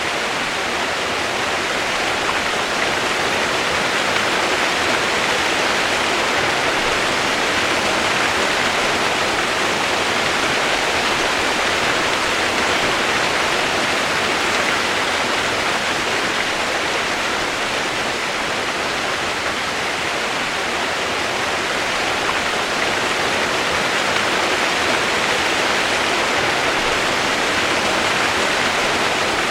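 Steady rain noise used as white noise: an even, unchanging hiss.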